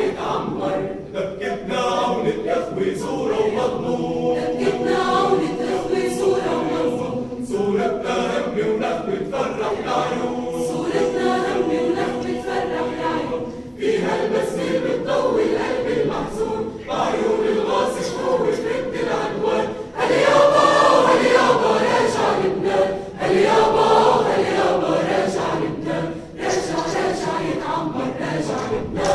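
Choir singing a cappella, with sustained phrases broken by short pauses about halfway through, about two-thirds through and near the end.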